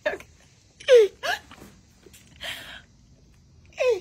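A woman's stifled laughter: a few short vocal bursts with falling pitch, a breathy exhale between them.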